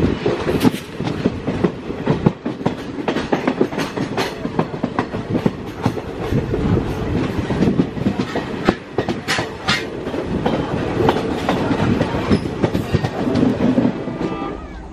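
Passenger coach wheels clattering at speed over rail joints, heard from the open door of the moving train, with an irregular run of clicks over a steady rumble. Near the end a locomotive horn begins to sound.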